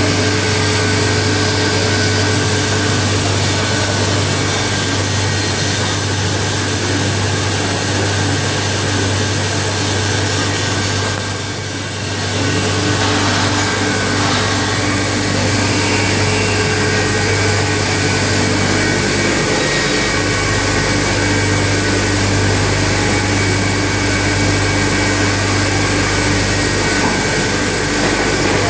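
Duran Omega Intro 110 folder-gluer running with carton blanks passing along its belts: a steady, loud mechanical whir with a low hum and several constant tones.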